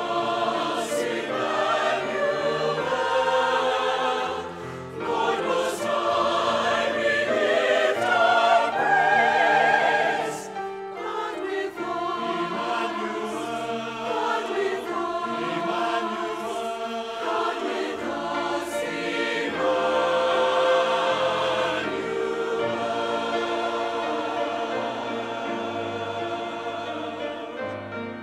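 Mixed church choir of men and women singing a choral piece in parts, with sustained notes.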